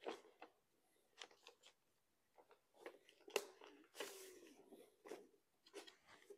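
Faint rustling and crinkling of newspaper being wrapped around a plastic drain pipe, in short scattered rustles with a longer one about four seconds in.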